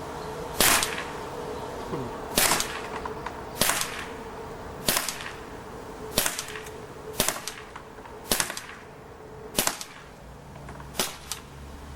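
Crosman T4 CO2 air pistol firing .177 pellets semi-automatically: a string of about nine sharp cracks, one every second or so.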